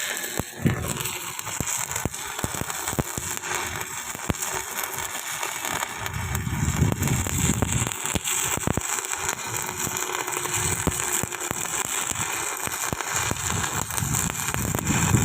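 Electric arc welding: the arc crackling and sizzling steadily, with many sharp irregular pops.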